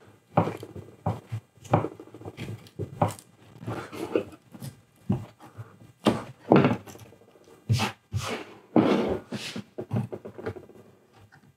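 A steel scraper blade being worked under the damaged, lifting surface layer of a particleboard tabletop, prying and scraping it loose. It makes a string of irregular scrapes, taps and knocks, with a couple of longer scrapes past the middle.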